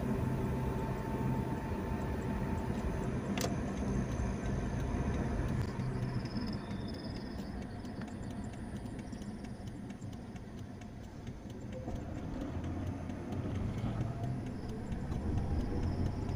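Steady low rumble of vehicle engines in an airport's outdoor ambience, with one sharp click about three seconds in and faint high chirps midway.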